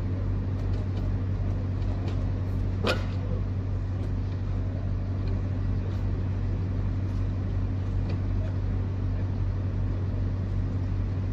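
Steady low hum of an idling diesel truck engine, with one short sharp knock about three seconds in.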